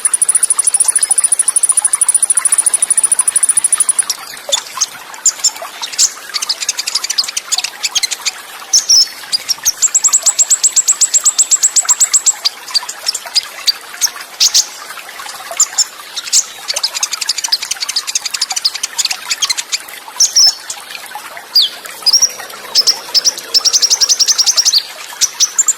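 Sunbird song: very fast high trills and scattered sharp chirps, over a steady rush of flowing water. One long, very high trill runs until about four seconds in, another comes at around ten to twelve seconds, and a lower trill comes near the end.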